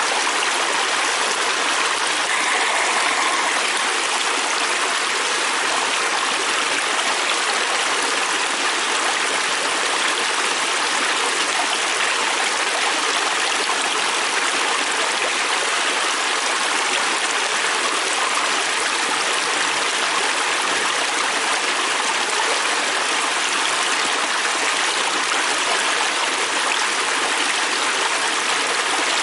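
Fast-flowing river stream rushing steadily, an even hiss of moving water without breaks.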